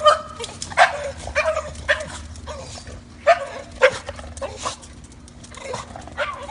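Female English bulldog puppy making excited short calls that sound like a turkey, a string of brief yelps about half a second to a second apart, with the loudest ones near the start and around the middle.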